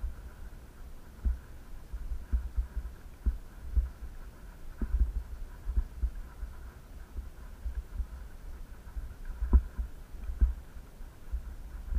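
Irregular low thumps and rumble on the microphone of a handheld camera, about one or two a second, over a faint steady high whine.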